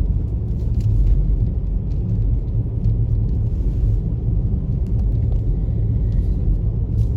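Steady low rumble of a car driving, heard from inside the cabin: engine and tyres on a snowy road, with a few faint ticks.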